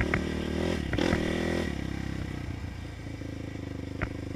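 450 quad's single-cylinder four-stroke engine revving up under acceleration for about a second and a half, then dropping back to a steady lower run. A few sharp knocks from the machine come near the start, about a second in and near the end.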